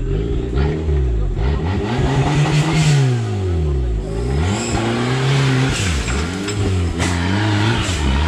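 Modified off-road 4x4's engine revving hard in repeated bursts, its pitch rising and falling five or six times, as it works up a steep muddy bank under load. A few sharp knocks come through, around one and seven seconds in.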